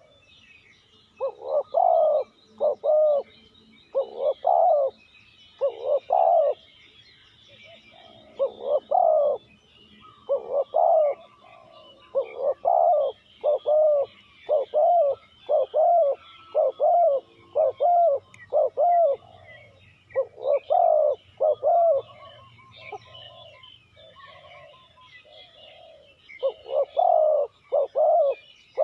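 Spotted dove cooing: low coos repeated in short phrases of two to four notes, over faint twittering of small birds.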